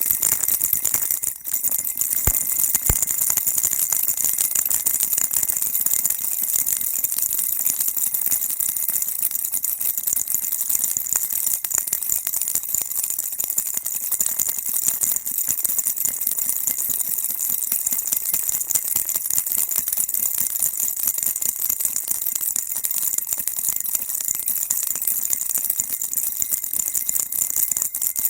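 Baby rattle shaken continuously: a dense, even rattling of many small beads, bright and high, with a brief dip about a second in.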